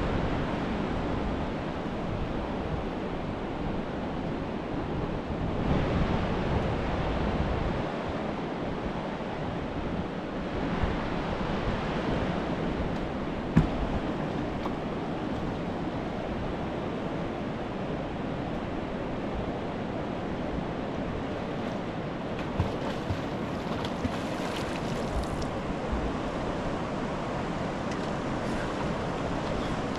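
River water rushing steadily, with one short sharp knock about halfway through.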